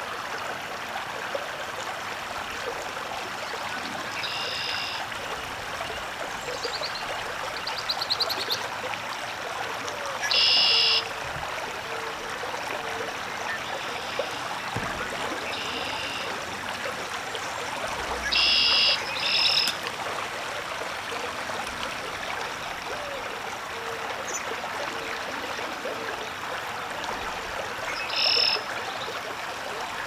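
Steady outdoor hiss with short, harsh animal calls, one or two at a time, every few seconds.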